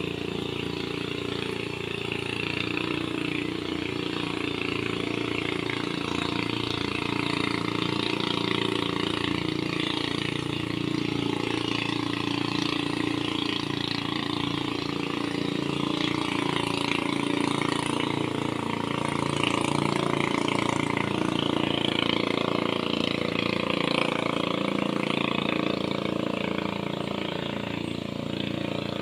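Small outboard engine of a ketinting, a narrow motorised river boat, running steadily as the boat passes, a little louder in the middle.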